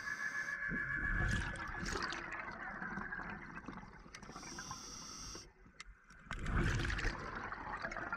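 Underwater scuba breathing on an open-circuit regulator: exhaled bubbles gurgling and rushing, with a short quiet pause a little past halfway before the next exhalation. A steady high whine sounds over the first couple of seconds and fades.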